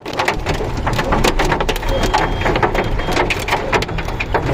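Heavy rain with hailstones pelting down: a dense, irregular patter of many sharp impacts over the steady hiss of the rain.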